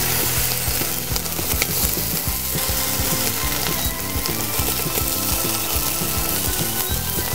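Chicken pieces sizzling on a charcoal grill, a steady crackling hiss, with background music carrying a rhythmic bass line underneath.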